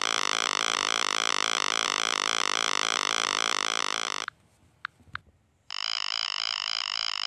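Synthesized 8-bit helicopter rotor sound effect: a steady, rapid pulsing electronic buzz. It cuts off a little after four seconds in, two short clicks sound in the gap, and the buzz comes back about a second and a half later.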